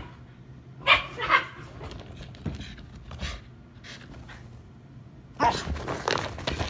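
A Shiba Inu and a husky-mix at rough play: two loud barks about a second in, a quieter stretch of low dog sounds, then from about five and a half seconds a dense burst of barking and scuffling as the chase breaks out.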